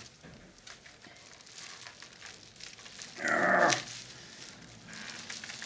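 Light clicks and scraping as a knob is worked off a vintage Philips radio cassette recorder. A short, pitched sound, the loudest moment, comes about three seconds in.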